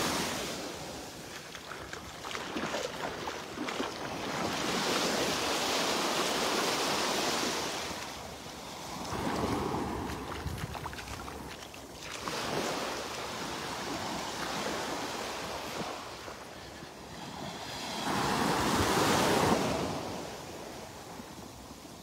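Small Gulf of Mexico waves washing up onto a sandy beach, the surf swelling and fading in several slow surges a few seconds apart.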